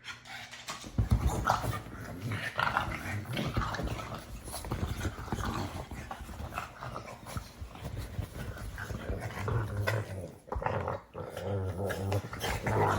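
Pug making noises almost without a break, starting about a second in and pausing briefly about ten seconds in.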